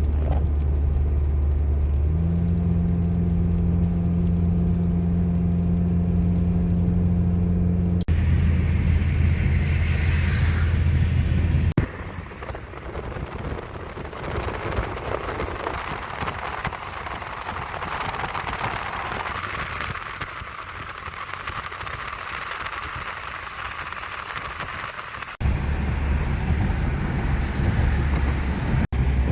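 Car driving on wet roads in rain, heard from inside the car. A steady low drone of engine and road noise runs through most of it. In a quieter stretch through the middle, a hiss of rain and tyre spray takes over.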